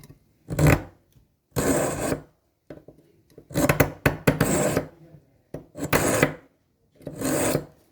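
A steel knife blade drawn repeatedly through a homemade sharpener, metal scraping on an abrasive: about six separate strokes, each under a second long.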